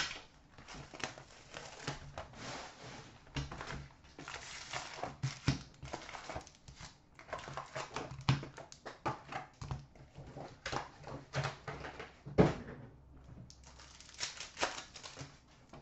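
Hands opening a cardboard hobby box of trading cards and handling the wrapped card packs, with irregular crinkling of the wrappers and scattered taps as packs are set down on a glass counter. Near the end a pack is taken up to be torn open.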